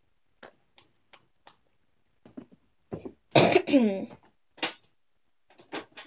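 A person gives a short cough or throat-clear about three and a half seconds in, the loudest sound here. Around it are a few light clicks and taps from plastic and silicone fidget toys being handled.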